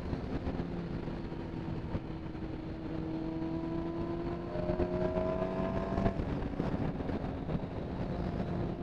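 Motorcycle engine running under way, its note climbing slowly for several seconds and then dropping away about six seconds in, with steady wind rush on the helmet camera.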